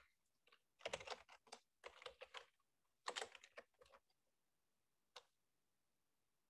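Typing on a computer keyboard: quick runs of keystrokes in three short bursts, then one last keystroke about five seconds in.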